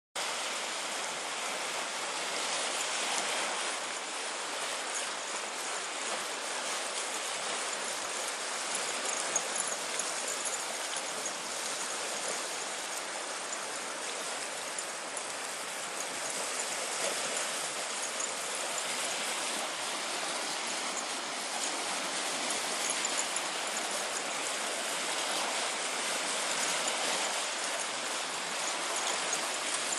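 Small waves washing steadily onto a stony river shore, a continuous rushing of water.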